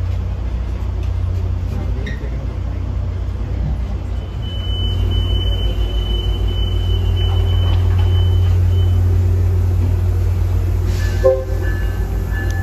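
Steady low hum of a Tri-Rail commuter train standing idling at the platform. About eleven seconds in there is a sudden sharp sound, followed by several steady tones that carry on, like a horn sounding.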